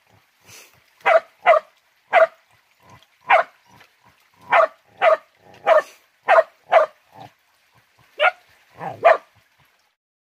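Hunting dog barking over and over, about a dozen sharp barks at uneven gaps; the barking stops about a second before the end.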